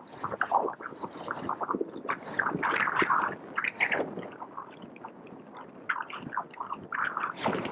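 City street ambience: a dense, irregular jumble of short noises with no steady tone or rhythm and no clear speech.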